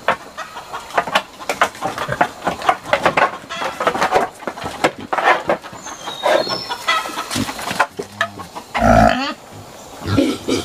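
Wild boars in a wooden pen, shuffling and knocking about on the wooden slats with grunts, and one loud, deep call near the end. Chickens cluck and call in the background about two-thirds of the way in.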